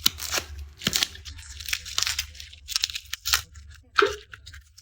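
Garlic being peeled by hand: dry papery skins tearing and crackling in a quick run of short, crisp snaps, with one louder crack about four seconds in.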